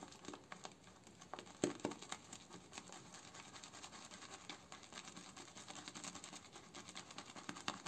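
Boar-bristle shaving brush (Semogue 2000) swirling and tapping through shaving soap lather in a bowl: a faint, wet crackling swish made of many small clicks, with one slightly louder tick just under two seconds in. The soap is being whipped to knock out the bubbles into a fine emulsion.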